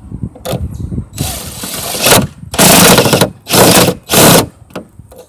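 Power tool driving a hood bolt, run in four short bursts of about half a second each, the first starting about a second in.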